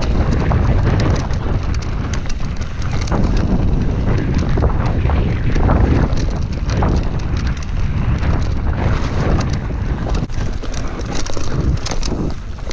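Wind buffeting the microphone over the tyre rumble of a Commencal Meta V4 full-suspension mountain bike descending fast on a dirt singletrack, with frequent short clicks and knocks from the bike rattling over bumps and roots.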